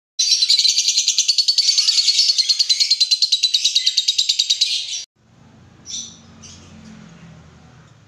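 A flock of caged lovebirds chattering, a dense shrill stream of rapid calls that cuts off abruptly about five seconds in. After it come a couple of faint chirps over a low hum.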